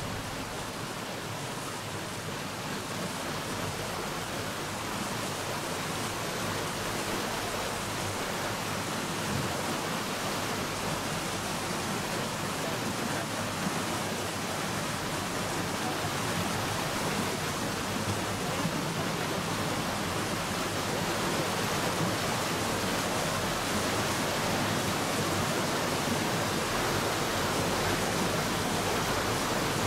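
Nile River white water rushing through rapids below Murchison Falls: a steady rushing, growing a little louder in the second half.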